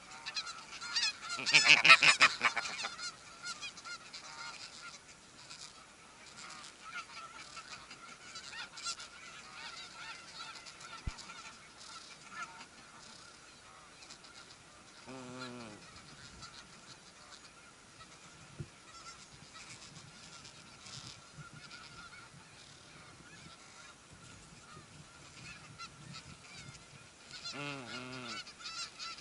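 Snow geese calling: a loud burst of rapid honking about two seconds in, then softer, lower calls about halfway through and again near the end, with faint distant goose calls throughout.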